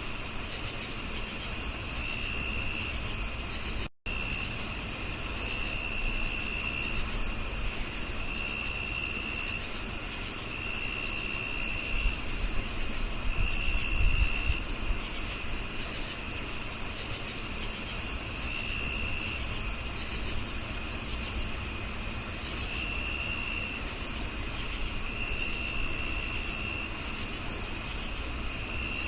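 Several crickets chirping: a continuous high trill, steady chirps about two or three a second, and shorter lower-pitched trills that come and go. The sound cuts out for an instant about four seconds in, and a faint low rumble rises about halfway through.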